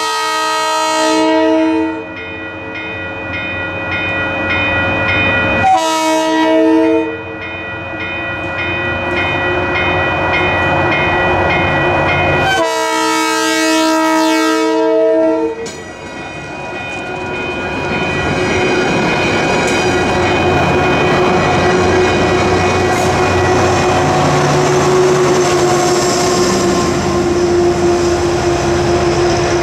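Diesel commuter train's horn sounding for a grade crossing: a long blast, a short one and another long one, over a crossing bell ringing steadily. The train then passes close by with a rising rumble of wheels on rail, and its diesel locomotive's engine is loudest near the end.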